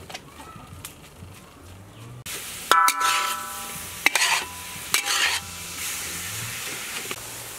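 A metal ladle stirring minced pork in a steel wok, striking the pan with sharp ringing clanks three times (the first, about two and a half seconds in, the loudest), over a steady sizzle of the meat frying that starts about two seconds in.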